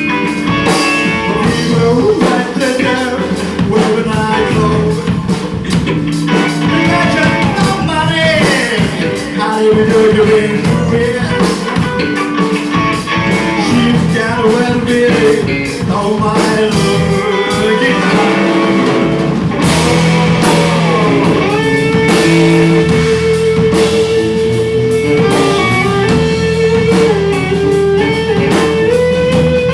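Live blues-rock band playing, guitar to the fore with notes bent up and down over a steady beat.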